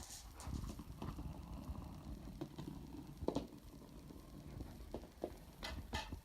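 Marble rolling along a split pool-noodle track: a low, rough rumble, with a few sharp clicks about three seconds in and twice near the end as it knocks against the track or Duplo blocks.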